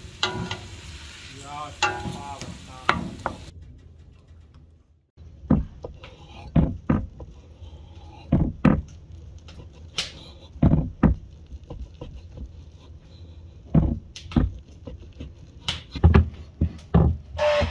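Onions in a steel pot stirred with a wooden spoon, with a soft sizzle. Then, after a cut, a kitchen knife cutting on a wooden cutting board: a series of irregular knocks, about one or two a second.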